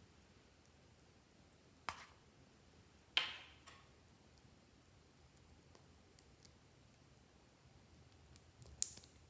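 Slime being mixed and handled, giving three short sharp clicks: one about two seconds in, the loudest just after three seconds with a brief crackling tail, and one near the end.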